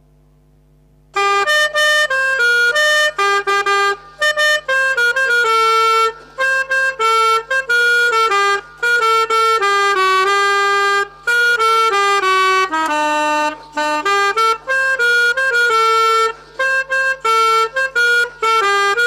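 Melodica (pianika) playing a quick single-line telolet bus-horn tune in short, separate notes with brief breaks, starting about a second in.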